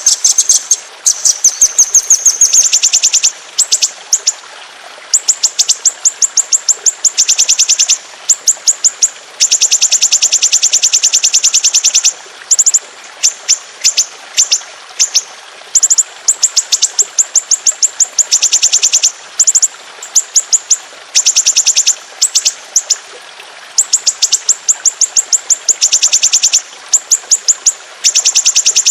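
Caged songbird singing long, rapid, high-pitched rolling trills ('nembak ngeroll'), each run of fast repeated notes lasting one to three seconds with short breaks between, the kind of song played as a masteran track to tutor other songbirds.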